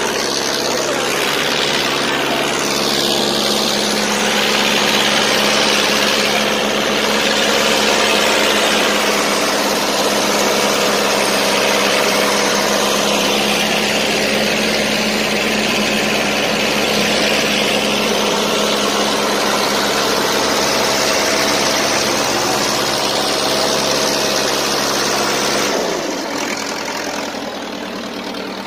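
Two farm tractors' diesel engines running hard under full load in a tug-of-war, coupled rear to rear by a steel bar, with the rear tyres turning on the road. The sound is loud and steady and eases off near the end.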